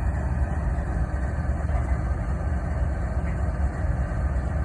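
CSX diesel-electric freight locomotives idling with a steady low rumble.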